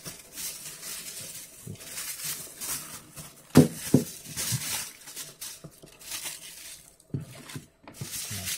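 Aluminium kitchen foil being unrolled from its roll, torn off and crinkled. Two sharp knocks about three and a half seconds in as the roll is handled.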